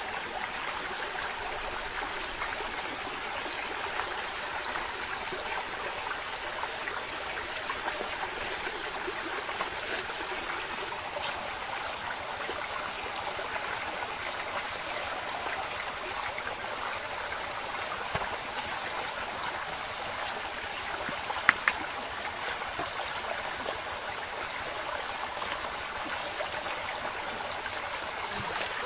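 Steady rush of running water, like a stream, with a couple of sharp clicks about three quarters of the way through.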